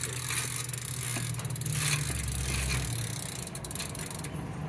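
Aventon Aventure e-bike's drivetrain running with the rear wheel spinning: the chain rattles and clicks through the Shimano Acera derailleur and cassette over a steady low hum. This is the chain and rear-wheel trouble that the owner says keeps the new bike from being ridden.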